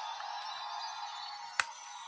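Electronic music playing from the Lieflasher toy's small built-in speaker, thin and without bass. A single sharp plastic click comes about one and a half seconds in as the device is worked by hand.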